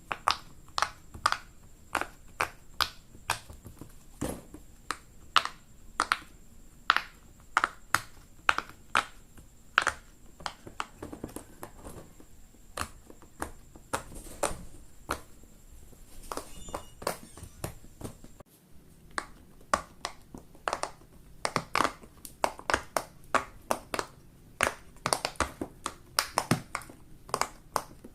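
Silicone pop-it fidget toy bubbles being pressed in one after another: a steady run of sharp pops, about two or three a second, coming faster after a short break about two-thirds of the way in.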